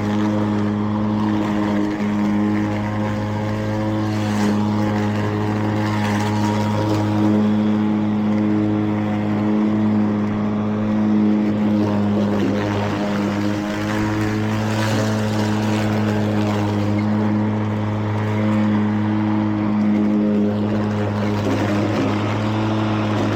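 Mowrator remote-control mower running with its cutting blade spinning, a steady, even hum while it mows.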